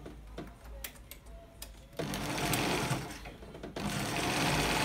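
Zoje industrial lockstitch sewing machine running in two bursts, one about two seconds in and a louder steady one from near the end, after a few light clicks. It is a trial run after adjusting the rotary hook.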